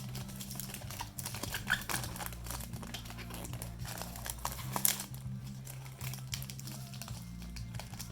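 Plastic shrink-wrap on a perfume box crinkling and crackling as it is cut and pulled off, with scattered small clicks and a sharper snap just before five seconds in, over a steady low hum.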